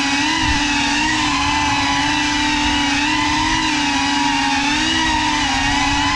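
Cinelog 35 cinewhoop FPV drone's motors and propellers whining steadily, the pitch wavering up and down as the throttle changes.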